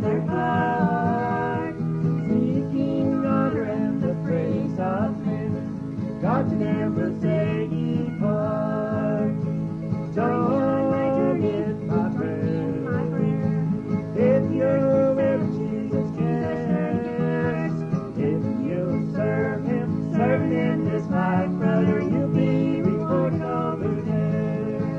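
Background music: a country-style tune with guitar.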